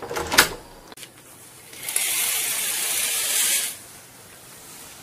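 Clicks and knocks of a metal door lever handle and latch, then, about two seconds in, a steady hiss of nearly two seconds that stops abruptly: a curtain being drawn open along its rail.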